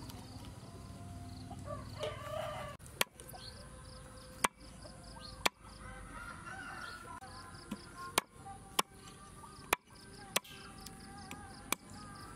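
Heavy steel cleaver chopping raw frog on a round wooden chopping block: about eight sharp, irregularly spaced knocks as the blade strikes the wood.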